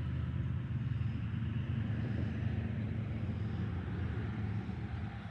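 Low, steady engine rumble of a passing motor vehicle, fading away near the end.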